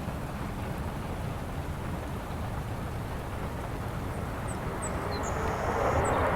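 Airliner engine noise: a steady rumbling roar that grows louder near the end.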